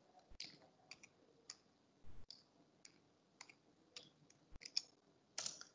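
Near silence with about a dozen faint, short clicks at irregular intervals, and a brief soft hiss near the end.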